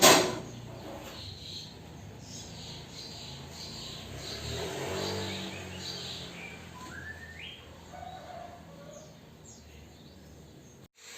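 One sharp knock at the start, then birds chirping faintly, in short scattered calls over a low steady hum.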